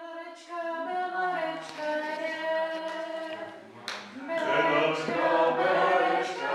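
Several voices singing together without instruments, holding long notes; the singing dips briefly about halfway and then swells again.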